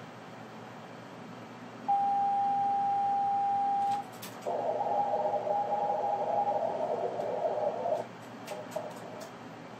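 A steady Morse tone, about two seconds long, from the station's own 432 MHz transmission, then after a half-second gap its moonbounce echo coming back through the receiver: a rough, wavering, noise-smeared tone that lasts about three and a half seconds, a strong echo. A few faint clicks follow, over steady receiver hiss.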